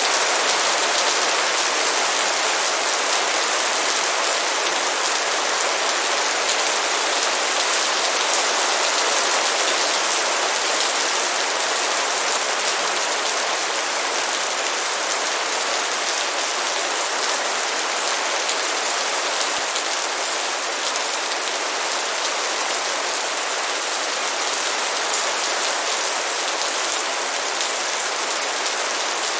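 Heavy rain falling steadily: a dense hiss of countless drops hitting surfaces. It eases slightly softer partway through.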